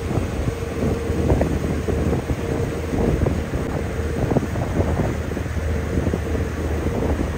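Wind buffeting the microphone in uneven gusts over a boat's steady low engine hum.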